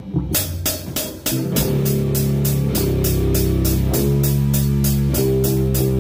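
Metal music: a drum kit with cymbal hits about three times a second, joined about a second in by heavy guitars and bass holding low chords.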